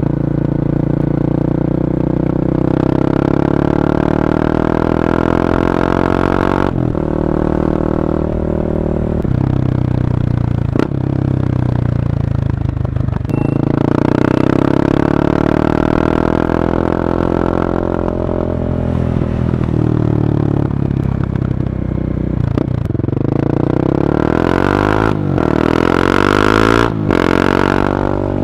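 Honda CB300R's single-cylinder engine through an Akrapovic carbon exhaust, ridden on the road: it pulls up through the gears, the note rising and then dropping briefly at each upshift, with a stretch of falling pitch as it slows in the middle before it accelerates hard again near the end.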